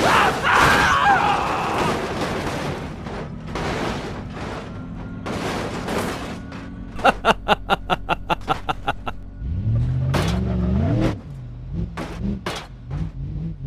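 Marbles rolling and clattering along a wooden marble run, with a quick run of even clicks, about six a second, partway through and a rising pitched tone near the end.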